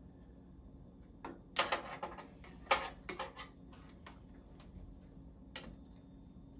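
A utensil knocking and scraping against a cooking pot in a few short clattering bursts, about a second in, twice more around two and three seconds, and once near the end, as stewed chicken is shovelled into a pot.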